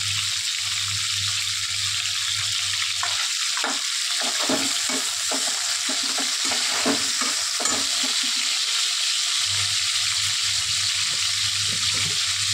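Chopped tomatoes, carrots and green chillies sizzling steadily in oil in a non-stick kadai. From about three seconds in until about nine seconds, a metal slotted spoon stirs them, scraping against the pan.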